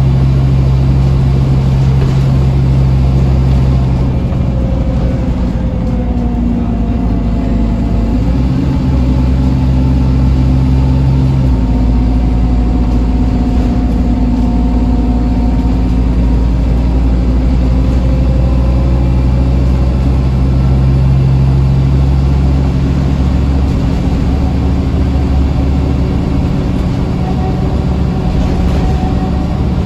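Scania N230UD double-decker's five-cylinder diesel engine heard from inside the lower deck while the bus is under way. Its low drone shifts pitch in steps several times, with a fainter whine above it.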